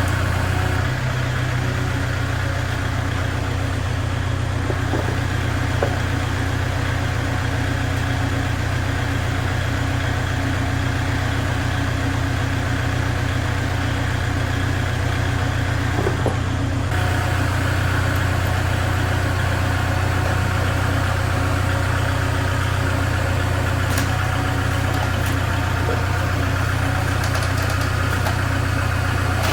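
Steady low machine hum with an even drone, its tone shifting abruptly twice.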